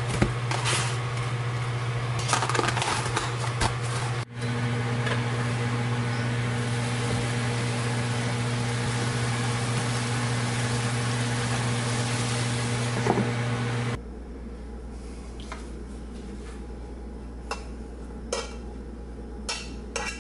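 Ground meat sizzling in a frying pan as it is stirred with a fork, over a steady low appliance hum. About fourteen seconds in, the hum and sizzle cut off suddenly, leaving a few light clicks and knocks of pan and utensils.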